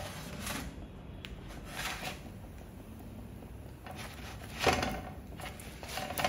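Shawarma wraps pushed and slid across an oiled nonstick frying pan by hand: a few short scraping rustles of the crisp bread on the pan, the loudest about three-quarters of the way through.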